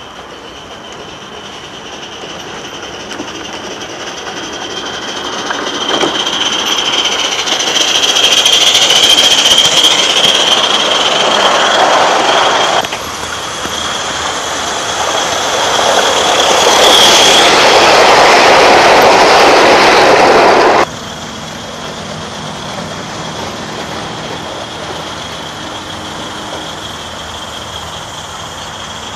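A coal-fired 16 mm scale live-steam locomotive running on garden railway track, growing louder over several seconds as it comes close. The sound cuts off suddenly twice, with a steady high tone underneath throughout.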